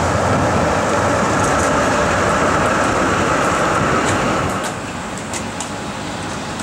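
Articulated city tram passing close on wet rails: steady rolling and motor noise with a few sharp clicks from the wheels on the track. About four and a half seconds in it drops to a quieter, even rumble.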